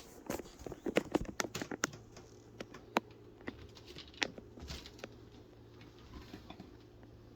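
Irregular light taps and clicks, bunched in the first two seconds and sparser afterwards, over a faint steady low hum.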